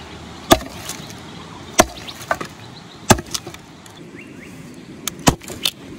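Hard chopping strikes into wood: four heavy blows roughly a second and a quarter to two seconds apart, with a few lighter knocks in between.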